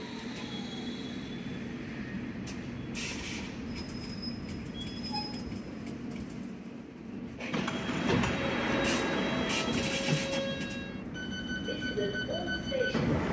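London Underground S stock train standing at the platform with a steady hum. About halfway through, its sliding doors open with a louder rush of noise, and near the end a run of short high beeps sounds from the train.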